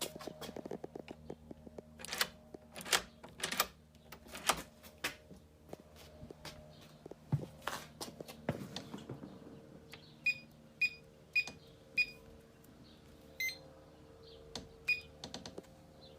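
Kwikset SmartCode 917 electronic keypad deadbolt: a run of clicks and knocks as it is handled and its keys are pressed, then short high beeps from the keypad, four about half a second apart starting about ten seconds in and two more singly after that.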